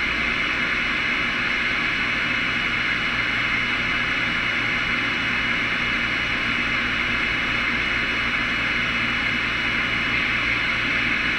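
Steady hiss of static from a CB radio receiver between transmissions, with no voices, only a faint hum under it.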